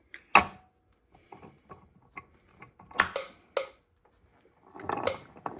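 Metal clicks and clunks from a Warner Bearing T9 transmission being worked by hand on a test with a simulated shaft fitted. The sharpest clunks come about half a second in and about three seconds in, with lighter ticks between.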